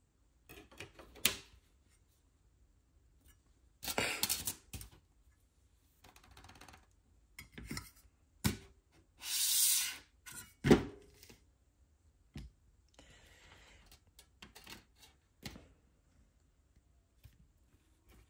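A thin stainless-steel PCB stencil and circuit boards being handled on a 3D-printed jig: scattered sharp clicks and taps as the metal sheet and boards are picked up and set down, with a scraping swipe about halfway through as a metal squeegee is drawn across the stencil.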